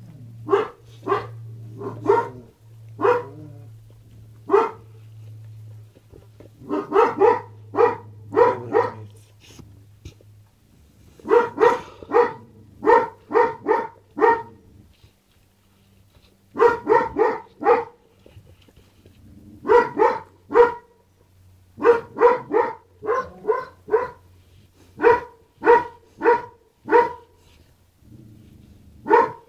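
A dog barking over and over in bouts of three to six barks with short pauses between bouts.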